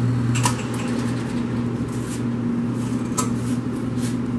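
Vulcan commercial convection oven being switched on and its stainless-steel door opened: several sharp clicks and knocks, the loudest about half a second in, over a steady low hum.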